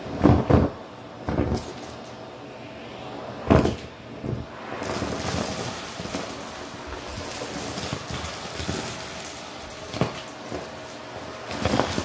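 Shark Navigator vacuum running with its wand attachment, sucking up small plastic pieces and fluff from carpet so that they rattle and crackle up the tube, several loud crackles in the first few seconds. From about five seconds in, the airflow takes on a brighter, higher hiss.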